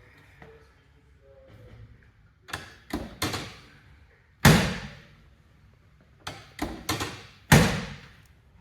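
Knocks and thuds on a chiropractic treatment table during adjustments. The pattern comes twice: a few light knocks, then one loud thud, about three seconds apart.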